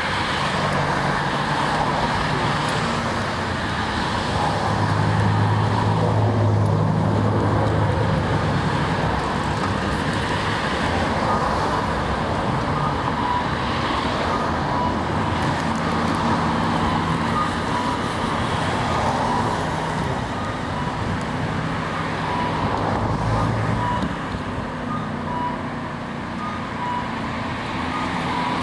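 Steady city road traffic, cars running past, mixed with a street-running electric tram moving along its track beside the road.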